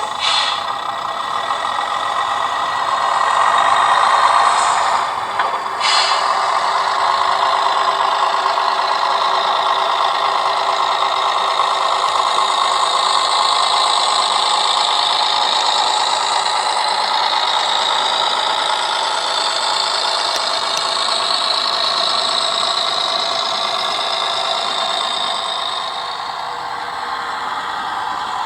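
Hornby TXS sound decoder in an OO-gauge Dapol Class 121 model playing diesel railcar engine sound through its small speaker as the model runs. It is steady, with a brief double click about five to six seconds in.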